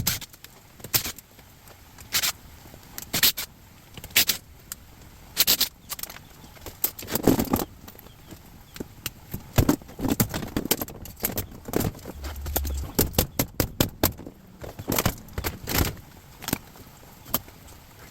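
Irregular metallic clinks and knocks of an appliance being taken apart by hand, with a quick run of rattling clicks about two-thirds of the way through.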